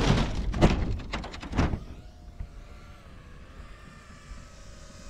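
Wind rushing and buffeting over a 16-foot rubber-band-powered model airplane's onboard camera as the plane dives, then crunching impacts as it crashes into hard ground about a second and a half in. After the crash only a faint, steady, slightly wavering tone remains.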